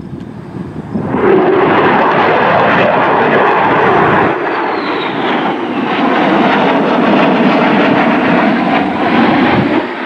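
Military fighter jet flying overhead, its engine noise swelling up about a second in and staying loud. A whine falls in pitch around the middle as the jet passes.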